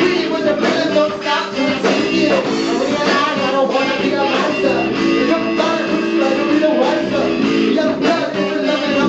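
Loud rock music played live, with a four-string electric bass guitar among the instruments.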